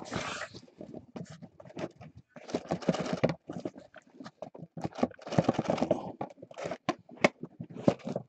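Crinkling and rustling of trading-card pack wrappers and cards being handled as the packs are opened. It comes in short clattering bursts every second or two.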